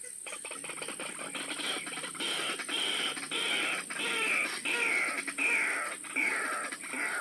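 White-breasted waterhen calling: a run of repeated calls about twice a second, each dropping slightly in pitch. They start about a quarter second in and grow louder after a couple of seconds.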